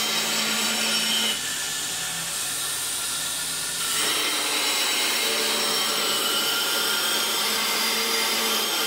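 Electric belt grinder grinding the edge bevel of a forged steel axe head before hardening: a steady, loud grinding noise. It eases off for a couple of seconds about a second and a half in, then comes back at full strength.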